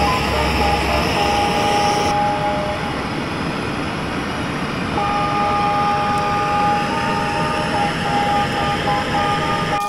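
Hose-fed gas blowtorch burning with a steady, loud rushing noise, with a few steady high tones over it.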